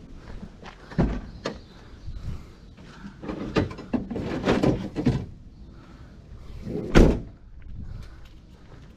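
A van door slammed shut about seven seconds in, the loudest sound, after a couple of knocks and a stretch of clattering as gear is handled at the van.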